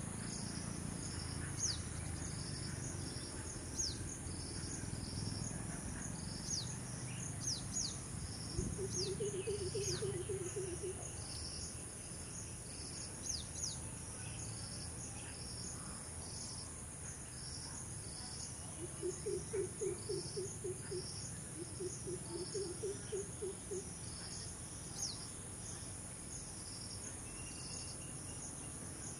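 Insect chorus in tropical scrub: a constant high buzz under a regular high pulsing chirr. Short falling bird whistles come now and then in the first half, and a low, rapidly pulsed animal call comes in three short runs, around 9, 19 and 22 seconds in.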